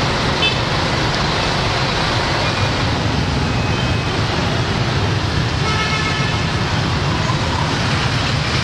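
Dense traffic noise from motorbike and car engines crawling in a jam, with a few short horn toots, the clearest about six seconds in.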